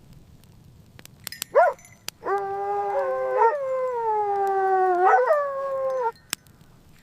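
An animal howling: a short rising call, then one long howl of nearly four seconds that slowly sags in pitch and lifts briefly before it ends.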